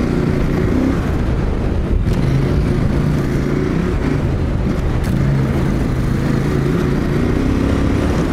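KTM 890 Adventure R Rally's parallel-twin engine running steadily under way, its revs rising and falling a little as the throttle is worked. Heavy wind rumble on the microphone throughout.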